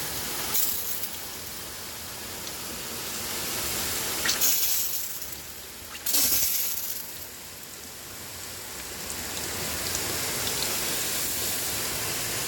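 Water spray rinsing cleaner off an aluminium diamond-plate toolbox: a steady hiss of water on metal, with two louder, sharper gushes about four and six seconds in.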